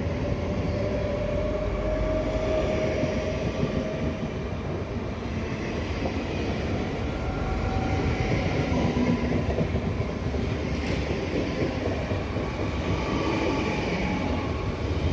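Dutch passenger train running past on the rails: a steady rush of wheel and rail noise with a faint whine.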